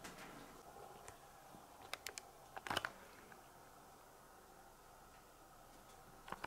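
Domestic cat pawing at wet toilet paper in a toilet bowl: a few faint clicks, with the loudest, a short cluster of scraping clicks, near the middle, and two more clicks near the end.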